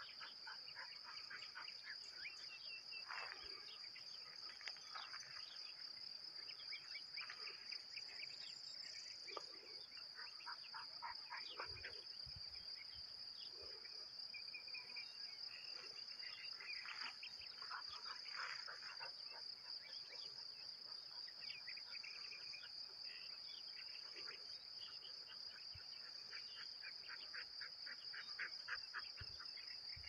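Crickets and cicadas chirping in a steady, high-pitched field chorus with a gentle pulse. Scattered quick bird chirps come and go over it.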